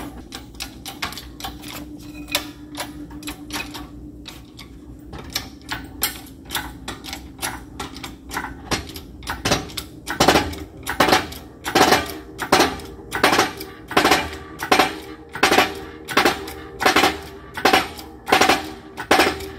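Hydraulic shop press being pumped by its bottle-jack handle, a rhythmic metallic clack with each stroke, as it presses a new pinion bearing onto a differential pinion. The clacks are lighter and quicker at first. From about halfway they turn into loud, regular strokes, a little more than one a second.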